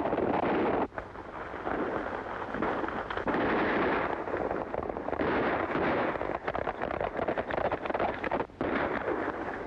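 Hoofbeats of several horses galloping hard, a dense drumming clatter that dips sharply about a second in and again near the end.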